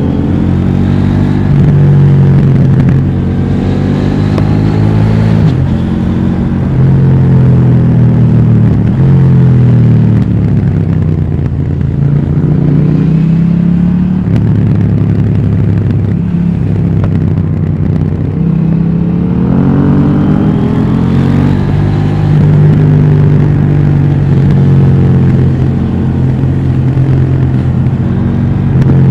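KTM 790 Duke's parallel-twin engine through its stock exhaust, ridden hard: the pitch climbs as it accelerates and drops sharply at each upshift, several times over, with stretches of steadier running in between.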